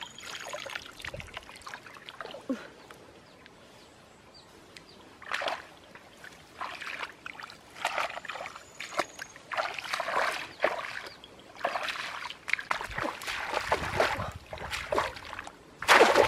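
Water splashing and sloshing as feet wade through shallow, muddy, grassy water, in irregular bursts. Near the end a louder splash as a bamboo plunge trap is pushed down into the water.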